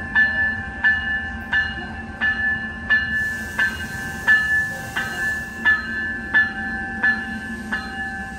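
Railroad bell ringing steadily, about three strikes every two seconds, over the low steady hum of a train.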